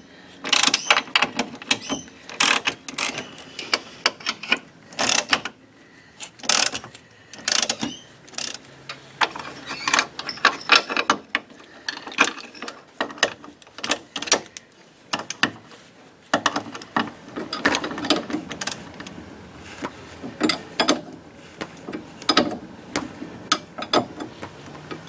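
Socket wrench ratchet clicking in short, irregular bursts as bolts are done up on the anti-dive packer under the front sway bar mounting.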